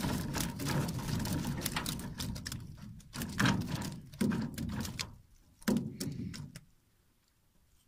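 Live tilapia flapping and slapping on the floor of a metal boat, with a wire-mesh fish trap rattling and knocking against the hull as it is emptied: a rapid clatter for the first couple of seconds, then three separate thumps.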